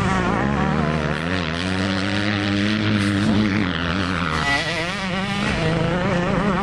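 Motocross bike engines revving, their pitch rising and falling as riders accelerate and shift through the gears, with several bikes overlapping.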